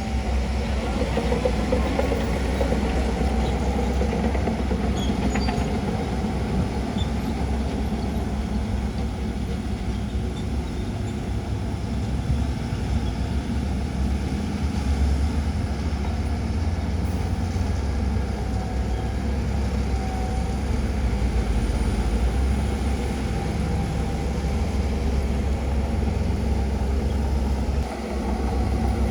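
Diesel engines of heavy earthmoving machinery running steadily, a deep continuous rumble, with a brief dip near the end.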